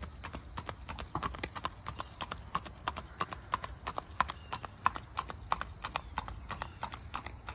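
A palomino horse's hooves clopping on an asphalt road at a steady walk, an even beat of about four hoof strikes a second.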